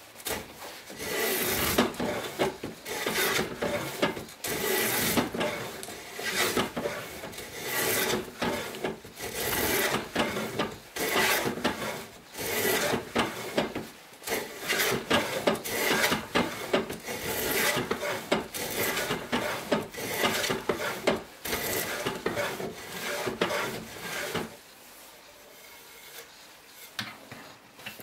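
Antique wooden plough plane cutting a groove along the edge of a board, its freshly sharpened iron shaving the wood in repeated back-and-forth strokes, about one a second. The strokes stop a few seconds before the end.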